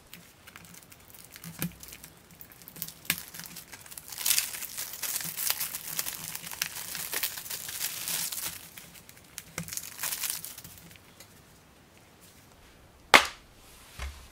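Clear plastic shrink-wrap crinkling and tearing as it is stripped off a DVD case, for several seconds. Near the end comes one sharp plastic snap as the case is opened.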